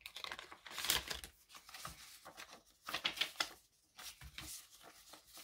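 Paper prop bills rustling and crackling as they are pulled from a binder's plastic zip pouch and flipped through by hand, in a string of short crinkles and snaps.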